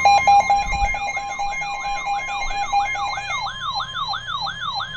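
NOAA Weather Radio warning alarm: a steady tone near 1 kHz, layered with a repeating rising siren-like sweep about three times a second. A second, pulsing tone drops out about three and a half seconds in.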